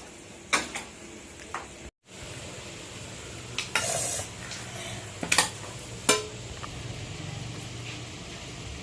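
Metal spoon clinking and scraping in a pot of curry, a handful of separate knocks over a low, steady sizzle.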